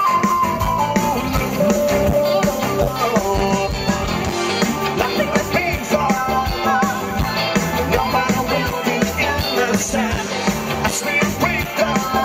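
Live band playing with a lead singer: sung vocals over drums, bass and keyboard, heard through a concert sound system.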